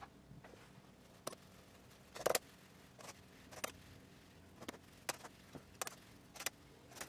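Fine-mesh metal sieve being tapped to sift flour and cocoa powder into a glass bowl: a series of about ten sharp taps, roughly one every half second, the loudest a double tap about two seconds in.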